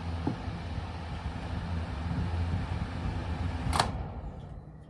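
Panasonic ventilation fan running with a steady low hum and rush of air. A sharp click comes near the end, after which the running sound dies away.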